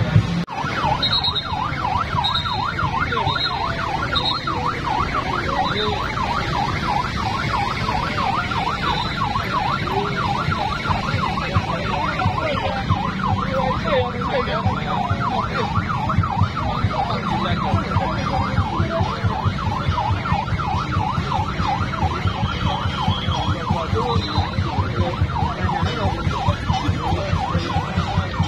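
A siren with a fast, repeating up-and-down warble, sounding steadily over street and crowd noise.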